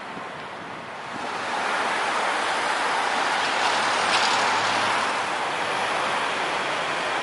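Street traffic noise, growing louder about a second in as a vehicle goes by, then staying as a steady rush of tyres and engines.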